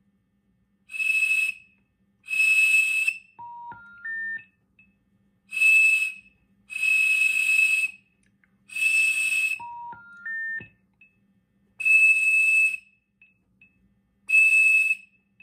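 Cap'n Crunch cereal-premium whistle blown into a headset microphone on a phone line: about seven short, breathy blasts of its 2600 Hz tone, used to seize a long-distance trunk. Twice between blasts the line answers with a three-note rising intercept tone.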